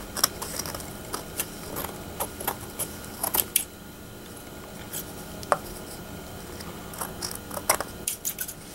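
Scissors snipping excess fabric off a foam ball: a run of quick, sharp snips and clicks over the first few seconds, a lull with a single click, then another cluster of snips near the end.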